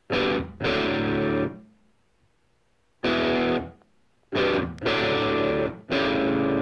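Distorted electric guitar playing a stop-start riff: chords held for half a second to a second at a time, with short pauses between them.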